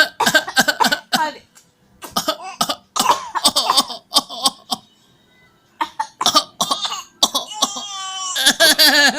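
A toddler making repeated pretend coughs in quick clusters, imitating an adult's cough, with short pauses between the clusters.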